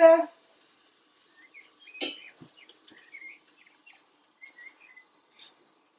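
A cricket chirping steadily in short high pips, about three a second, with a few faint bird calls. A single sharp click about two seconds in, from metal tongs on the grill grate.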